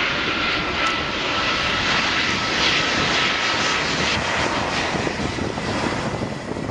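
Airbus A380-800's Rolls-Royce Trent 900 jet engines on landing approach, gear down: a steady jet roar with a faint high whine.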